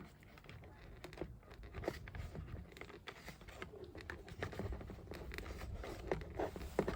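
Faint handling noise, light rustling with scattered small clicks, as doorbell wires are pushed back into the hole in the wall.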